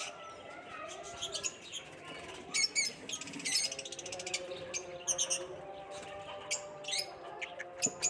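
A flock of caged lovebirds chirping and squawking in short, sharp, high calls that come in clusters every second or two, over a faint steady tone.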